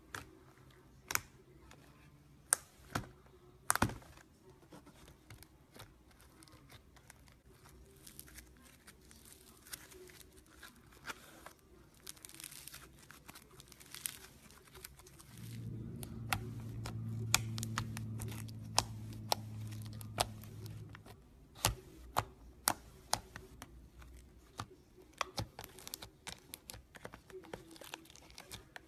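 Slime being squished and stretched by hand, giving many sharp clicks and crackling pops. A low steady hum runs for about five seconds in the middle.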